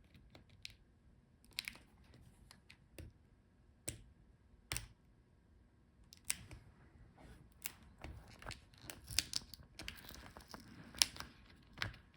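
Faint, scattered small clicks and taps, growing into denser crinkling and rustling from about two-thirds of the way in: hands working a laptop's speaker cable and Wi-Fi antenna wire out of their routing in the plastic chassis.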